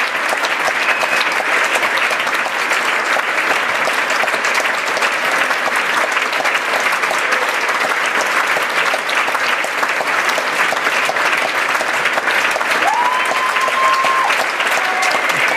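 Theatre audience applauding: dense, steady clapping of many hands that holds at an even level throughout.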